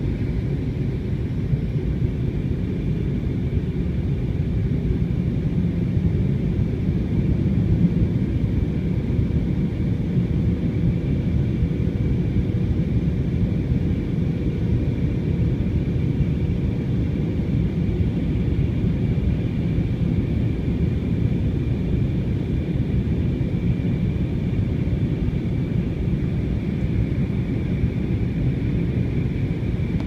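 Steady cabin noise of a jet airliner in flight, heard from a passenger seat: a deep, even rumble of engines and rushing air with a faint high whine running over it.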